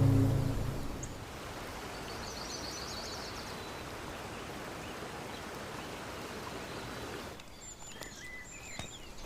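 Outdoor ambience: a steady rushing noise with a short run of quick bird chirps about two seconds in. A little after seven seconds the rushing cuts off abruptly, leaving scattered bird chirps and light clicks.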